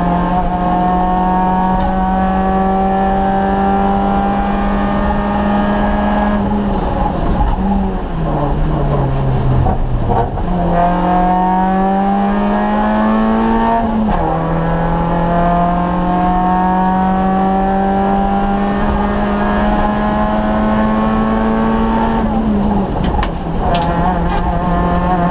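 Citroën Saxo VTS rally car's 1.6-litre four-cylinder engine pulling hard, heard from inside the cabin. The note falls away between about a third and half way in as the car slows. It then climbs again and drops suddenly with an upshift twice, about halfway and near the end.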